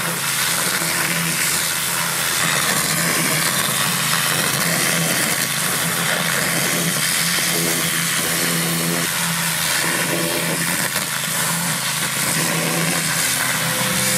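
Pressure washer running steadily, its high-pressure water jet hissing against a log as it strips off the bark, over the steady hum of the machine's motor and pump.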